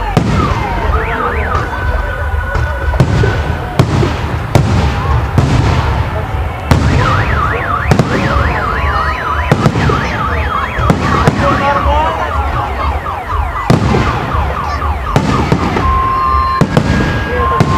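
Fireworks display: aerial shells bursting with sharp bangs about once every one to one and a half seconds. A car alarm, set off by the blasts, wails rapidly up and down through the middle and switches to steady beeping near the end.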